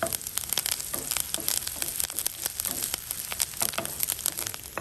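Curry leaves and sliced onions sizzling and crackling in hot coconut oil, with many sharp pops throughout: the tempering for a fish curry being fried.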